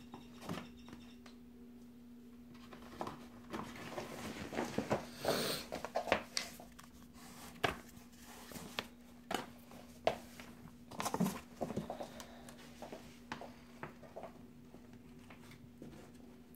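Small hands rummaging through a fabric caddy on a changing-table shelf: irregular rustling with scattered knocks and clicks of the items inside, busiest about three to seven seconds in and again near the middle, over a steady low hum.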